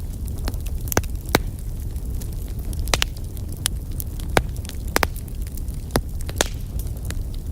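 Wood logs burning in a fireplace: a steady low rumble of the fire with irregular sharp crackles and pops, a few of them louder.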